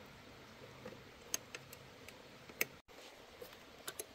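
Scattered light clicks and ticks, about seven, irregularly spaced, the loudest a little past halfway, over a faint steady low hum. The sound cuts out completely for an instant just before three seconds in.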